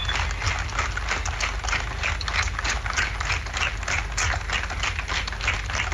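A crowd applauding: many hands clapping as a dense, irregular patter of claps, cheering a victory line in an outdoor speech.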